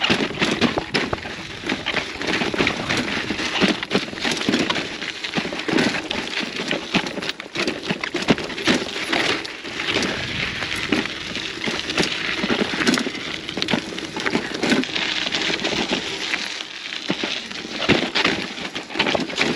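Gravel bike descending rocky singletrack: a steady crunching crackle of tyres over loose dirt and rock, broken by many sharp clicks and knocks as it goes over the bumps.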